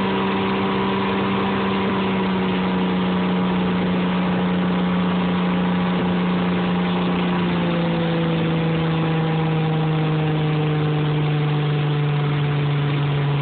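Motorboat engine running under way while towing, over the steady rush of its wake and spray. The engine's note drops a little about halfway through as the throttle eases.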